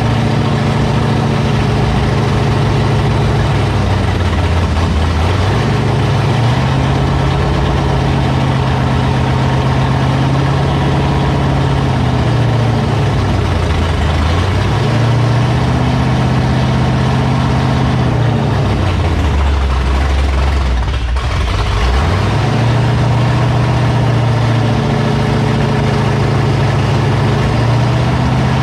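Freshly built Ford 351 Cleveland V8 with a Comp Cams Thumper camshaft, running loud and steady at raised revs for camshaft break-in. Three times the revs drop to a lower speed and come back up.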